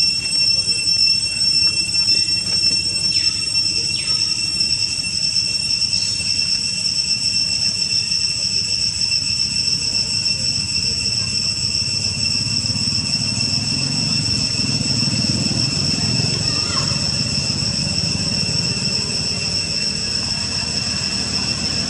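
Steady high-pitched insect drone, as from cicadas, holding several even pitches without a break. A few short falling squeaks come through it, and a low rumble swells up from about halfway.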